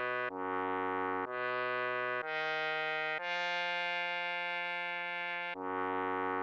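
Music of held electronic chords, changing about once a second, then one chord held for over two seconds before another change near the end.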